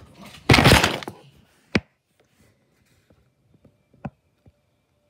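A loud crash of something being knocked over, lasting about half a second, then a sharp knock soon after and a smaller one about two seconds later.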